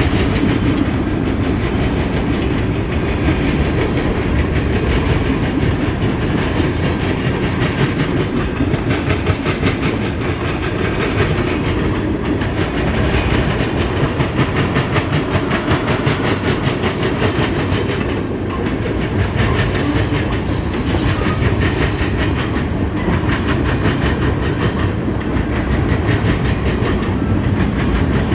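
Cars of a passing freight train rolling by: a steady loud rumble with a fast clatter of wheels over the rails.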